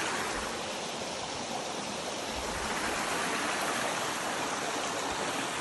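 Shallow mountain creek running over rocks: a steady rush of water, with a few faint low bumps.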